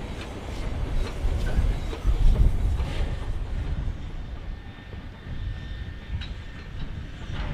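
Queensland Railways C17 class 4-8-0 steam locomotive 971 running with its train: a low rumble with a few sharp knocks.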